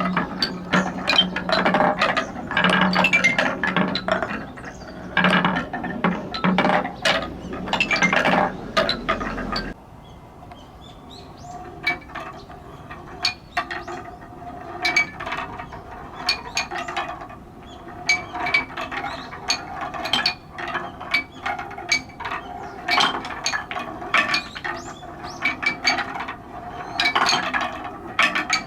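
Big balls rolling and clattering down a wooden stair-and-slope marble run: a dense, rapid run of wooden clicks and knocks. About ten seconds in the level drops suddenly, and the clicks and clacks continue more sparsely.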